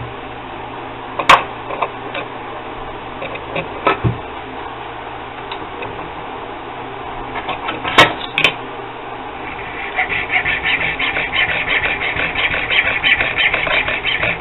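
A few sharp clicks and knocks as small knife parts are handled and clamped in a bench vise, the loudest about a second in and again about eight seconds in. From about ten seconds in, a hand file rasps on the small clamped part in fast, even strokes.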